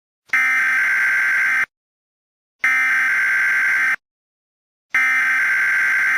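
Emergency Alert System SAME data bursts: three loud bursts of digital data tone, each a little over a second long, about a second apart.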